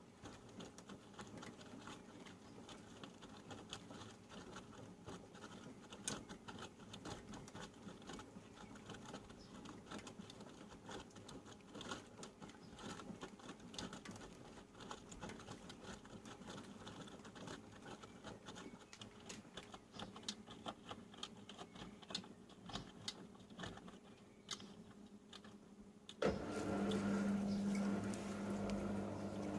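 Panasonic NA-147VB2 inverter washing machine mid-wash: wet laundry patters and clicks in the turning drum. Near the end a louder, steady hum starts suddenly.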